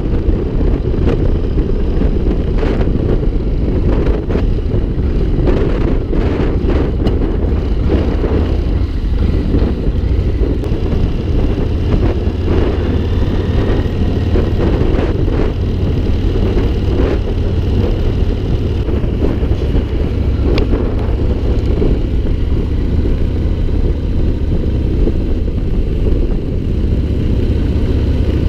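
Wind buffeting the microphone over a Yamaha MT-01 motorcycle's V-twin engine running at a steady road speed.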